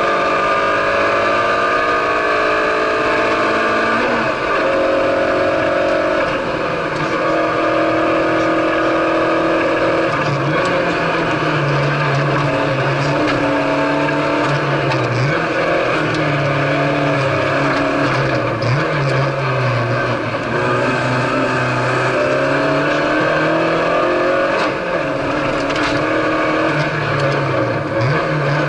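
Citroen C2 rally car's engine heard from inside the cabin, revving hard and climbing in pitch, with repeated sudden drops as the driver changes gear and lifts for corners. Loud road and tyre noise runs underneath.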